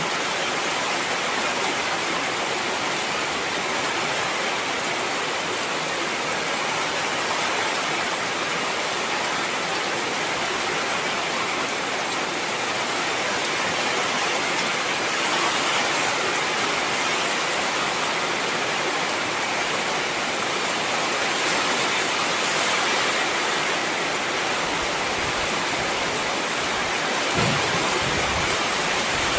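Heavy rain falling steadily, a dense, even hiss of rain on surfaces. A few brief low rumbles come in near the end.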